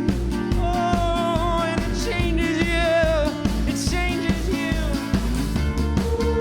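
Live band playing an instrumental passage: a lead melody with vibrato and slides over a steady drum beat and bass.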